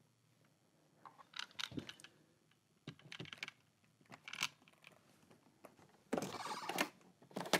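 Scattered plastic and metal clicks and clacks from a SimpliSafe smart deadbolt being handled and turned, fitted with a 3D-printed ABS replacement part. A denser rattle lasting under a second comes near the end.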